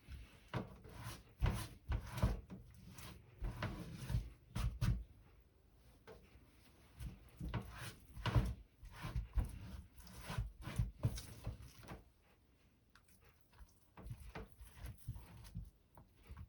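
A knife and fish being worked on a wooden cutting board: irregular knocks and scraping rubs in three bursts, with short pauses between.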